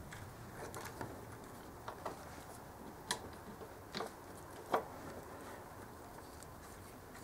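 A handful of light metallic clicks and taps, spaced about a second apart, as a steel gear-change lever is handled and fitted onto the motorcycle's greased gear shift shaft.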